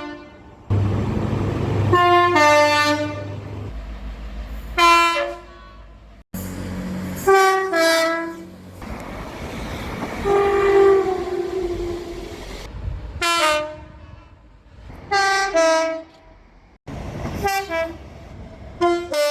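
Two-tone train horns on British locomotives and multiple units: a run of short blasts, mostly a higher note dropping to a lower one, in clips that cut abruptly from one train to the next. A diesel engine's low rumble sits under the early blasts, and one longer horn note in the middle sags slightly in pitch.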